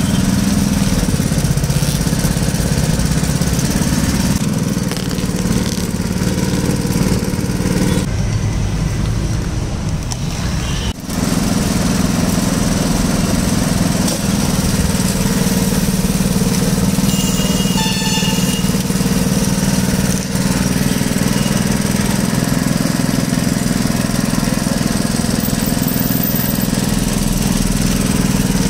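Sugarcane juice machine with wooden rollers running with a steady engine drone as sugarcane stalks are fed through it for crushing.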